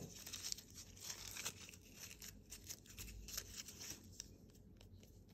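Faint, irregular rustling and light scraping of a lint-free nail wipe rubbed over a gel-coated practice nail tip, wiping off the sticky uncured gel layer.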